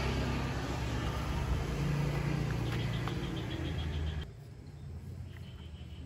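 Steady low rumble of a motor vehicle's engine, which cuts off abruptly about four seconds in and leaves a much quieter background with faint high chirps.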